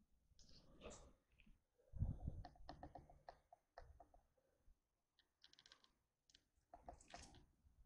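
Faint footsteps crunching over a debris-strewn floor, with scattered small clicks and crackles. There is a soft thump about two seconds in, and a quick run of clicks near the six-second mark.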